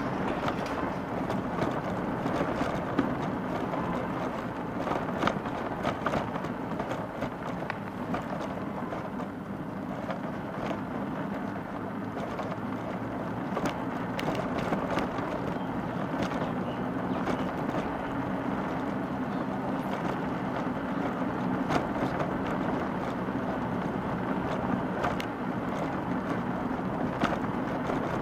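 Road and traffic noise heard from a moving electric bike: a steady rumble with many small clicks and rattles scattered through it.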